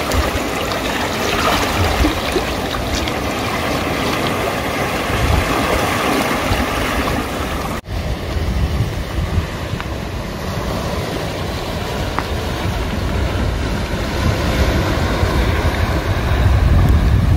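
Small waves washing and breaking over rocks at the water's edge, with wind buffeting the microphone. The sound drops out for a moment about eight seconds in, and the wind rumble grows stronger near the end.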